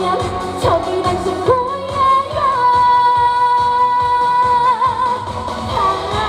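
Korean trot song performed live by a female singer over accompaniment with a steady beat. About two and a half seconds in she holds one long note, which wavers with vibrato near its end before the melody moves on.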